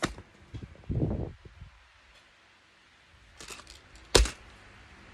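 Fidget toys, pop-its among them, being handled and set down on a surface: a few light clicks and rustles, then one sharp knock about four seconds in.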